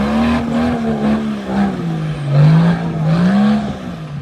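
Off-road 4x4's engine revving under load, its pitch rising and falling several times as the driver works the throttle.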